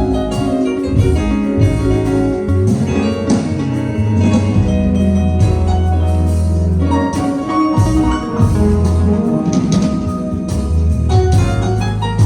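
Instrumental band music: a bass line, drums and melodic instruments playing together without singing.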